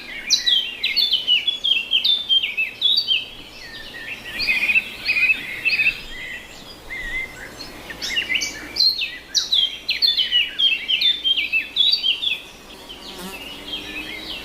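Songbirds singing in spring: a busy run of quick, sweeping chirps and twitters that come in bursts, with two short lulls. A faint low hum comes in near the end.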